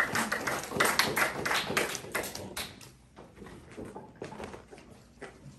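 A small audience clapping in quick, irregular claps that thin out and fade after about three seconds. A few light taps and knocks follow as a poster board is lifted off an easel.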